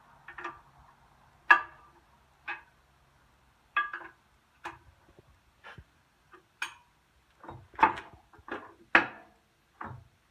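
Sharp metallic clicks and clinks of a wrench working the clutch adjustment nuts on a John Deere 60 clutch, spaced about a second apart at first and coming faster near the end.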